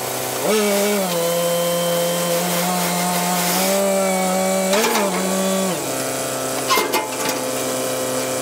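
Moffett truck-mounted forklift engine running above idle as its hopper tips out crushed rock, rising briefly about five seconds in, then dropping to a steady idle about a second later. A couple of sharp metal clanks near seven seconds.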